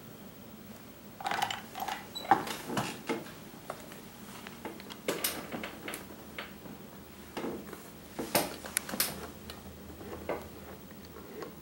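Handling noise: a dozen or so irregular, sharp clicks and knocks of a plastic radio-control transmitter being picked up and moved about.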